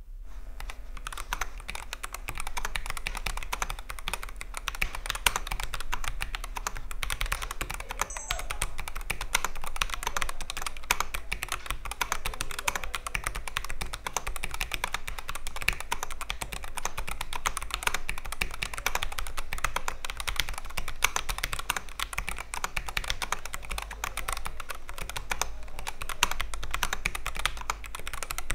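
Typing on a Royal Kludge RK N80 low-profile mechanical keyboard: a fast, continuous run of key clicks, as a test of how its typing sounds.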